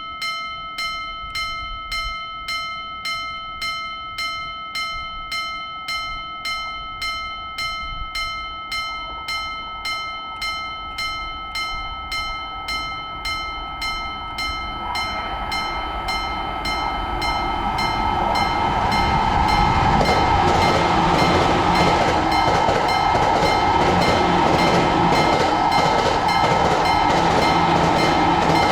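Japanese level-crossing warning bell ringing steadily, about three strikes every two seconds. A train's running noise builds from about halfway in and passes loudly through the second half, with the bell still ringing over it.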